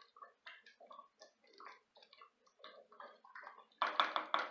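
A wooden spoon stirring thick stew in a stainless steel pot, making soft, irregular clicks and scrapes against the pot. Near the end, a run of louder, rapid metallic knocks with a slight ring starts.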